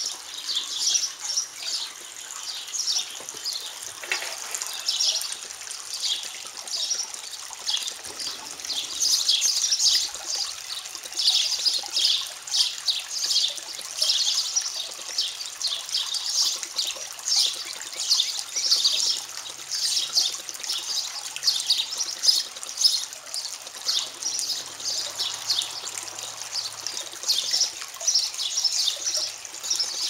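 Baby sparrows chirping continuously, many rapid high chirps overlapping with hardly a pause.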